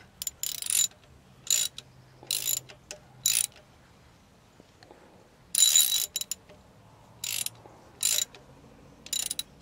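Socket ratchet clicking in about eight short strokes with pauses between, the longest about six seconds in, as a new spark plug is tightened down into its hole.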